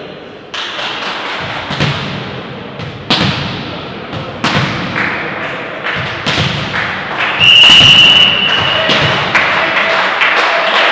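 Repeated thuds of a volleyball being struck and hitting the floor, ringing in a reverberant sports hall. About seven and a half seconds in, a referee's whistle blows once for under a second, the loudest sound.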